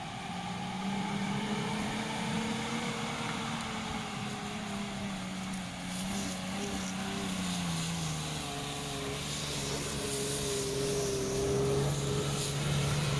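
4x4 SUV engine working hard under load as it struggles up a steep, muddy off-road slope and fails to climb it. The revs sag about two-thirds of the way through and then rise again near the end.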